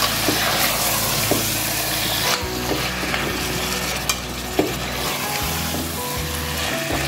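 Mutton pieces sizzling as they fry in spices in a steel pot, stirred with a metal spoon that clicks and scrapes against the pot now and then. The sizzle thins a little about two and a half seconds in.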